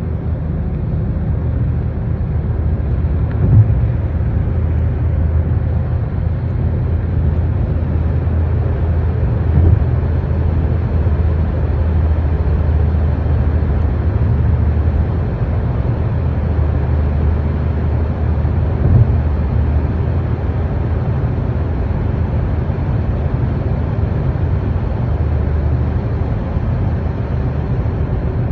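Steady low rumble of a moving car, heard from inside the cabin: engine and tyre noise on the road. A few brief thumps come through it, about a third of the way in and again past halfway.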